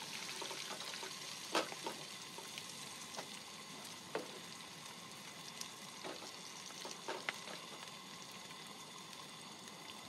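Breaded razor clams frying in a pan: a steady sizzle with a few sharp pops and crackles.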